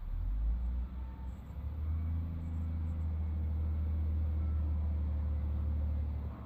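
Excavator's engine running with a steady low drone, settling louder about two seconds in and easing off just before the end.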